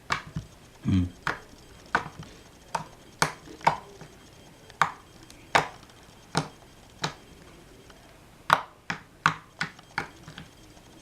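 Homemade slime being squeezed and poked by hand, giving sharp sticky pops and clicks at an irregular pace of one or two a second, coming faster in a quick run near the end.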